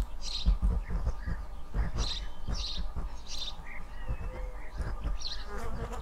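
Sparrows chirping, short high chirps repeated every half second to a second, with low irregular rumbling underneath.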